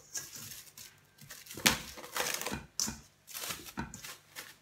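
Plastic cling film stretched over a steel bowl crinkling as hands grip and turn the bowl, in a series of short irregular rustles.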